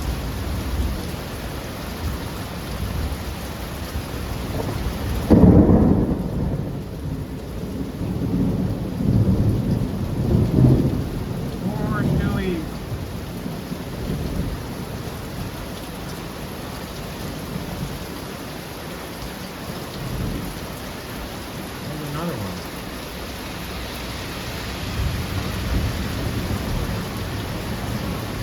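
Thunderstorm with steady heavy rain. A loud, deep thunderclap breaks about five seconds in, followed by rolling rumbles of thunder over the next several seconds before it settles back to rain.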